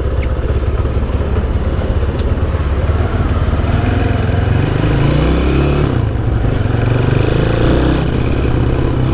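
Honda C90's small single-cylinder four-stroke engine running as the bike is ridden, its pitch rising and falling a little through the middle.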